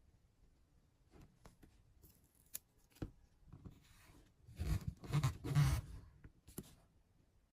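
Hands handling small hard parts: scattered light clicks and taps, then a short spell of louder scraping and knocking about halfway through.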